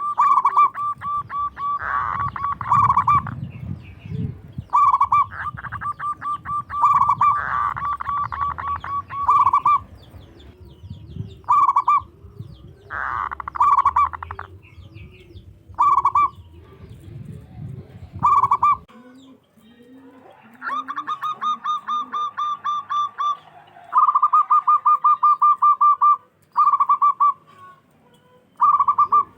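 Zebra dove (local perkutut) cooing: repeated phrases of rapid, rolling coo notes with short pauses between them. A lower series of hoots runs underneath in the middle, and a low background rumble cuts off about two-thirds of the way through.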